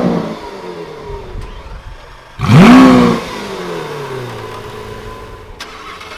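Supercar engine revved once, the pitch shooting up and dropping straight back, then settling to a steady idle. The tail of an earlier rev falls away at the very start.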